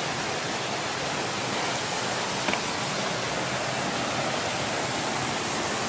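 Waterfall and river water rushing steadily, an even hiss, with one faint click about two and a half seconds in.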